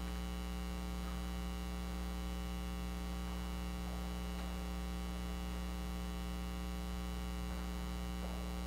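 Steady electrical mains hum, a constant low hum that does not change.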